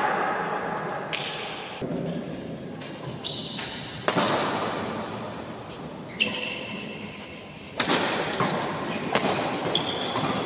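Badminton doubles rally: sharp hits of rackets on the shuttlecock at irregular intervals, with smaller taps between them, ringing on in a large sports hall. Short high squeaks of shoes on the court floor come in between the hits.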